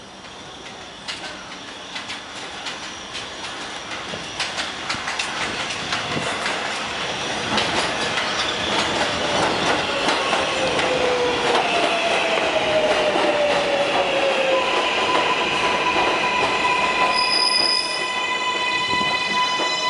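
New York City Subway R188 train arriving and braking to a stop. It grows steadily louder as it approaches, with wheels clicking over the rail joints throughout. As it slows, high electric whining tones glide down in pitch, with wheel squeal along the rails.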